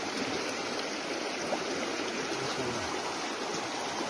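Shallow, muddy creek running over a gravel bed: a steady rush of flowing water.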